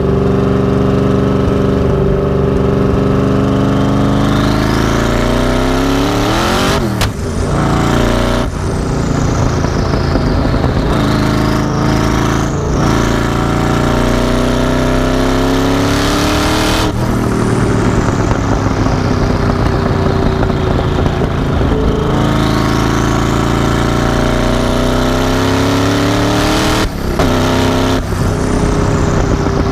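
Mazzanti Evantra's twin-turbo V8 under hard acceleration, its revs climbing again and again with sudden breaks at gear changes.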